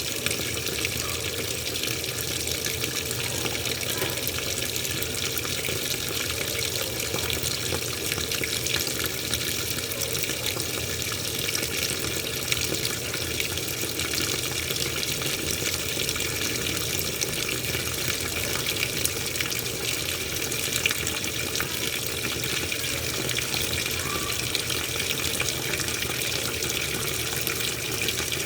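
Washing machine running a load of towels: a steady, even rush of water.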